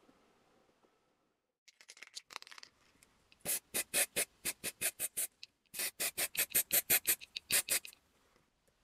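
Rapid back-and-forth rubbing strokes on the steel axe head, about five a second, in two runs with a short break between them, after a few scratchier strokes near the start.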